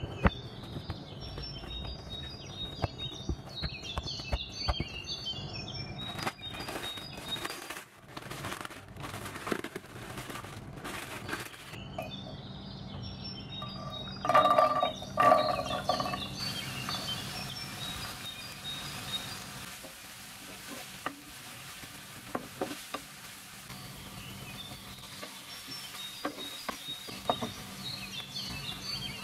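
Birds chirping in the background over bread dough being kneaded by hand in a glass bowl, with scattered soft knocks. Later a low steady hum sets in and chopped vegetables are stirred in a nonstick frying pan with a wooden spatula, with a brief louder clatter partway through.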